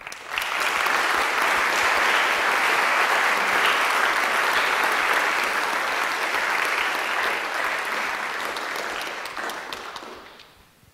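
Audience applause that breaks out at once, holds steady for about eight seconds, then dies away near the end.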